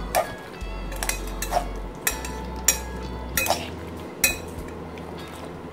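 Fork and spatula clinking against a glass bowl as raw chicken pieces are tossed in a spice masala: a series of irregular sharp clinks, over a steady low hum.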